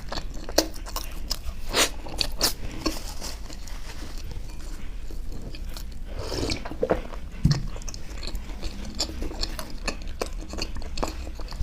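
Close-miked eating of chocolate ice cream bread: bites and wet chewing, with irregular sharp mouth clicks and a softer low patch of chewing about six to seven seconds in.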